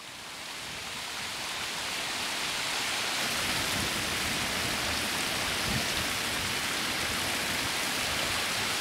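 Geyser erupting: a steady rushing hiss of steam and falling water spray, swelling up over the first couple of seconds and then holding steady.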